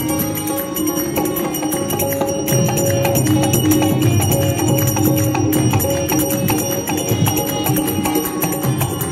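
Instrumental passage of a live bhajan band: small hand cymbals (manjira) struck in a fast, steady rhythm over held melody notes and drums.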